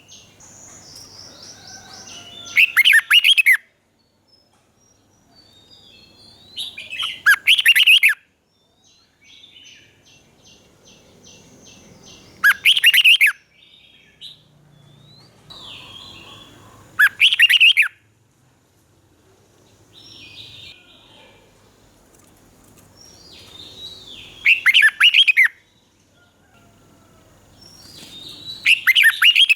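Red-whiskered bulbul singing: six loud, short song phrases about every four to five seconds, with softer chirps and calls between them.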